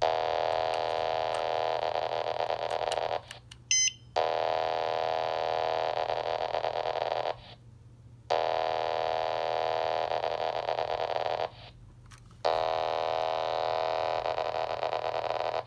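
The 27.255 MHz paging transmission heard as bursts of a steady data tone: four bursts of about three seconds, each followed by a gap of about a second, as the page is sent over and over. A short high beep sounds in the first gap.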